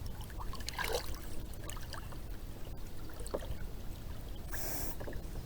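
Water trickling and splashing lightly around a kayak, with scattered small clicks and knocks, and a short splash near the end.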